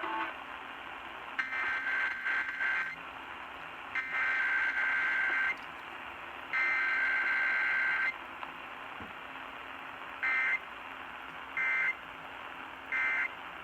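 Emergency Alert System SAME data bursts heard over a radio, with steady hiss between them. Three header bursts of about a second and a half each come first, then three short end-of-message bursts about a second apart. This is the header-then-end-of-message pattern of a required weekly test, with no attention tone.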